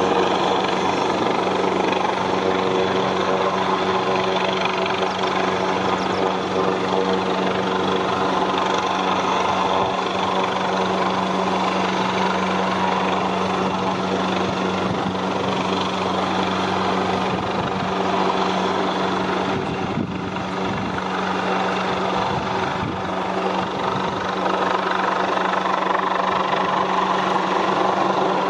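Search-and-rescue helicopter hovering: a steady sound of engines and rotors with a constant hum.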